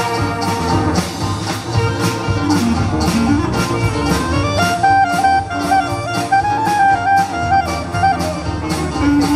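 Dixieland jazz band playing live: clarinet and brass carry a stepping melody over banjo, double bass and drum kit keeping a steady beat.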